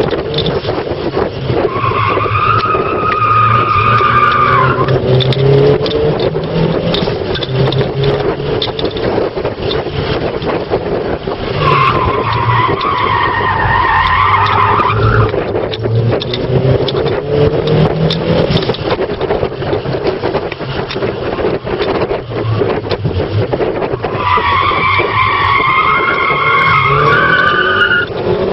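Toyota Starlet Glanza's turbocharged four-cylinder engine running hard, heard from inside the cabin. The tyres squeal through corners three times: about two seconds in, around twelve seconds in, and from about twenty-four seconds until near the end.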